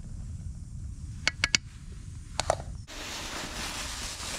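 A wooden spatula clicking against the side of a camping pot of scrambled eggs: three quick knocks about a second in and two more a second later, over a low rumble. Near the end this gives way abruptly to a steady hiss.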